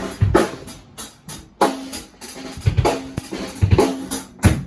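Drum kit being played: kick drum, snare and cymbal hits in a repeating beat.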